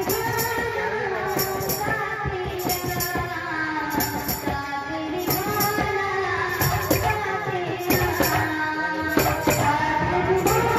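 Live kirtan music: a sung devotional melody over drum strokes, with paired jingling metal strikes about every second and a quarter keeping the beat.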